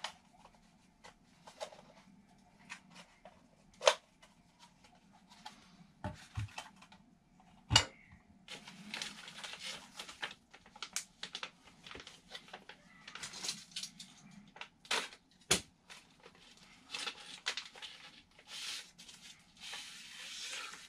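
Clear plastic packaging bags crinkling and rustling in spurts as parts are handled, with three sharp taps of parts knocking against the bench.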